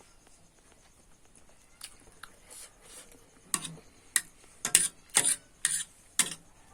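Eating sounds while noodles and eggs are being eaten: a run of about eight sharp clicks and taps in the second half, after a quiet start.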